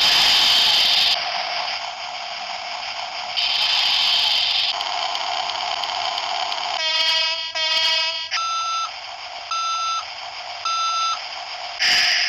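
Electronic mobile phone ringtone: two short buzzy tones, then three identical high beeps about a second apart. Short bursts of hissing noise come at the start, about three and a half seconds in, and near the end.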